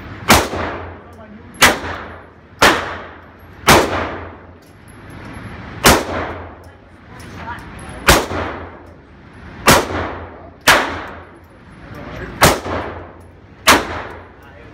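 Handgun shots fired one at a time, about ten in all, mostly a second or so apart with a couple of longer pauses. Each shot is a sharp crack followed by a ringing echo off the walls of an enclosed indoor range.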